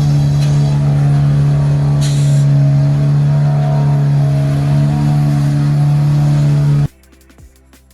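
A heavy engine running at a steady speed with a loud, even drone. It cuts off abruptly about seven seconds in.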